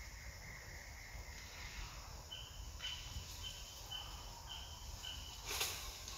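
Faint forest ambience: a steady high whine in the first couple of seconds, then a short high note repeating about twice a second from an insect or bird, with a brief rustle near the end.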